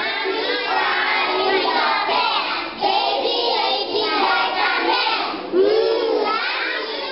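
A class of young children singing together in unison.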